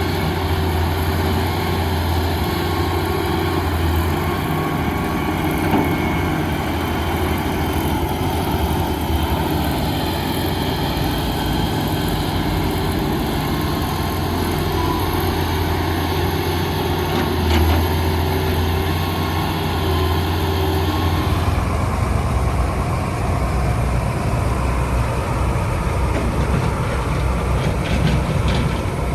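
Diesel engines of heavy earthmoving machinery, an excavator and dump trucks, running steadily. About three-quarters of the way through, the sound changes abruptly to a duller engine rumble.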